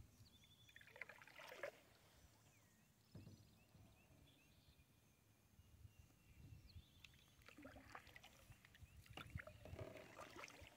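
Faint water sounds of a kayak on a still pond: soft paddle dips and small splashes with light knocks on the hull, coming more often in the last few seconds.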